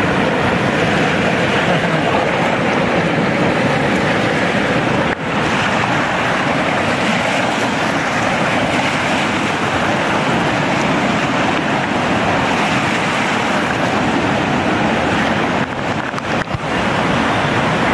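Flood-swollen river rushing steadily over rocks at the bank: a loud, even rush of water.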